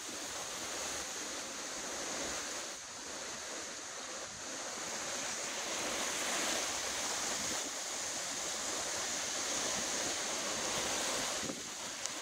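Strong storm wind of about 40 mph with gusts near 60 mph rushing through palm fronds: a steady rushing noise that swells and eases with the gusts, then drops off near the end.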